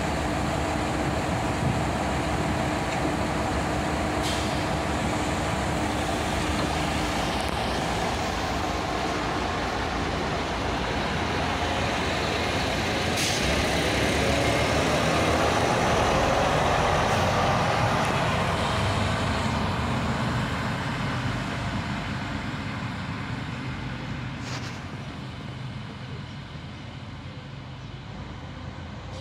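Two coupled Fiat ALn 668 diesel railcars pulling out under power, their engines running loud as the train passes close by, then fading steadily as it moves away.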